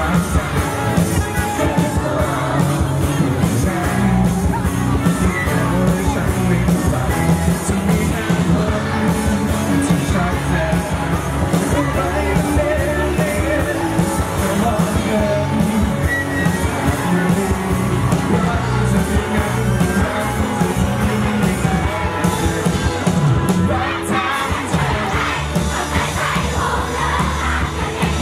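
Live rock band playing a song: electric guitars, bass guitar, drum kit and keyboard under a male lead singer.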